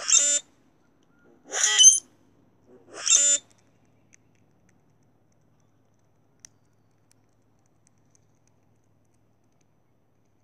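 Male common grackle giving its short display song three times, about a second and a half apart: males showing off to one another.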